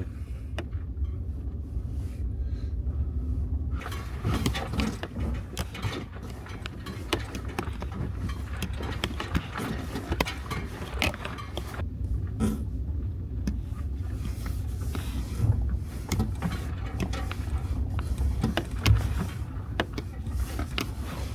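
Suzuki Jimny driving slowly on a steep, slippery, snow-covered road: a steady low engine and road rumble. From about four seconds in, frequent irregular clicks and knocks come through.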